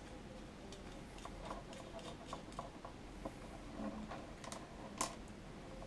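Faint, scattered clicks and ticks of small metal screws and nuts being handled and threaded on an acrylic LCD mounting plate, with a couple of sharper clicks near the end.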